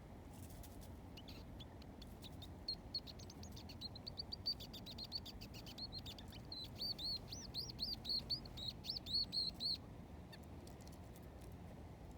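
A bird calling a long run of rapid, high chirps that comes through more strongly in its second half, then stops about ten seconds in.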